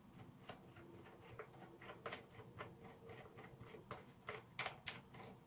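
Faint, scattered clicks of a socket and nut being turned by hand as the last nut is backed off a threaded rod, a few clicks a second, slightly louder near the end.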